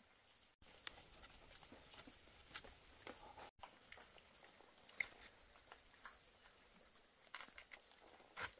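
Faint, short high chirps repeating two or three times a second from a small animal, with scattered light taps and clicks.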